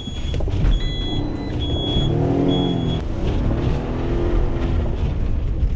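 Delivery van engine running and revving, rising and falling in pitch a couple of times, while a high in-cab warning chime beeps four times in the first three seconds.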